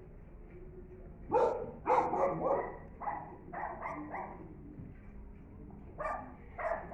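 Dogs barking: a quick run of short barks starting about a second in, then two more barks near the end.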